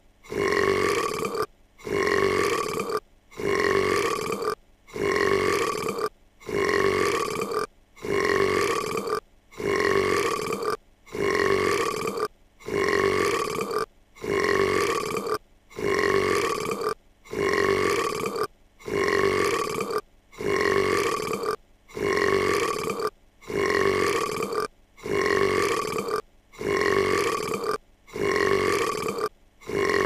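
A cartoon girl's long burp played on a loop, the same burp repeating about every second and a half. Each burp lasts about a second at a steady pitch, with a brief silent gap between repeats.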